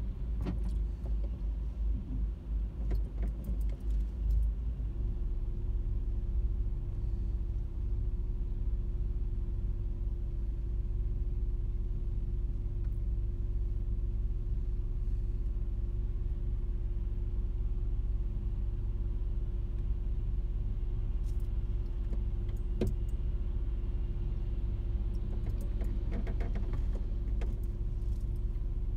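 Car engine idling, heard from inside the cabin while stopped: a steady low rumble, with a steady hum coming in about five seconds in. A few light clicks sound near the start, once in the middle and in a quick cluster near the end.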